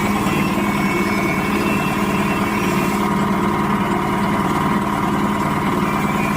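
Areca nut splitting machine running, a steady mechanical drone with a fast even pulse.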